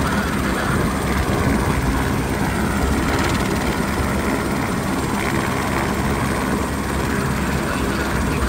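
Airbus H125 light helicopter running on the ground with its main rotor turning: a steady, loud single-turbine and rotor noise.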